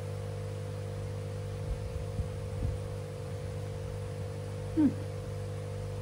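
A steady electrical hum, with a few faint knocks of cockle shells being handled and pried open by hand. A brief voiced sound from the eater comes about five seconds in.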